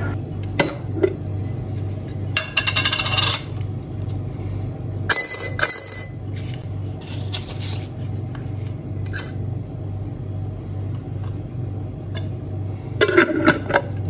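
Metal screw-top lid twisted off a glass jar, coins clinking against the glass about five seconds in, and the lid handled and screwed back on near the end, over a steady low hum.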